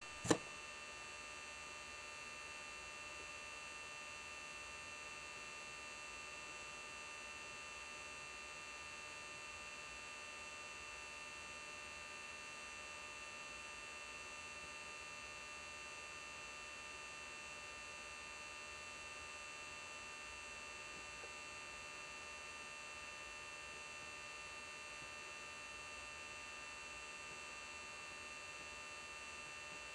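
Faint steady electrical hum and whine, several fixed high tones held unchanged throughout, with a single short click just after the start.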